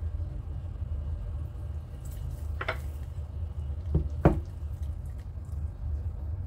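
A hand working wine and herbs into a rack of raw pork spare ribs on a ceramic platter: a few light clicks and taps, about two and a half seconds in and twice around four seconds, over a steady low hum.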